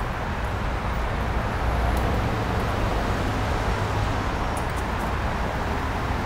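Steady city street traffic noise, a low rumble that swells a little between about one and a half and four and a half seconds in.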